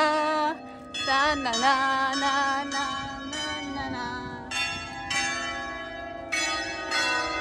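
Church bells ringing: a run of irregular strikes about half a second to a second apart, each ringing on and fading before the next.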